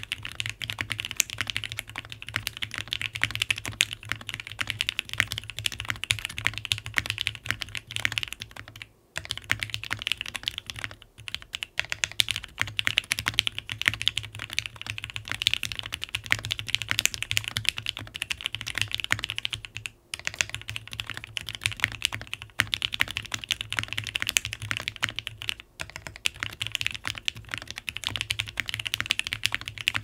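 Steady, fast typing on a Wind X65 custom mechanical keyboard with Bingsu linear switches, GMK Serika 2 keycaps and a carbon fibre plate: a dense run of clacky keystrokes, broken by a few brief pauses.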